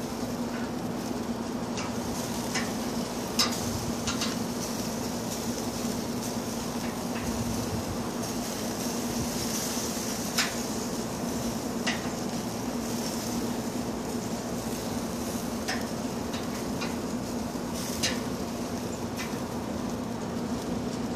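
Tongs clinking against the grate of a drum smoker as meat is turned, scattered sharp metal clicks over a steady background hum.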